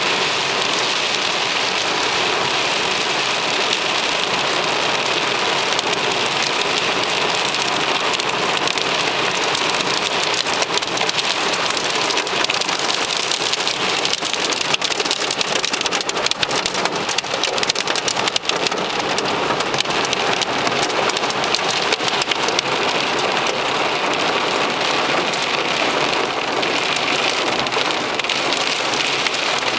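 Heavy rain mixed with hail falling on a car's roof and windscreen, heard from inside the car: a dense, steady hiss with many sharp ticks of hailstones and large drops striking.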